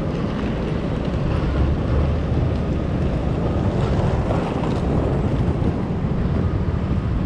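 Steady city street noise: a low traffic rumble, with wind buffeting the microphone.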